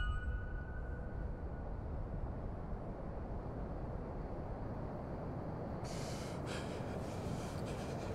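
Steady low rumble of outdoor beach ambience. About six seconds in, a man starts gasping and breathing hard as he comes round, with his clothes rustling as he sits up.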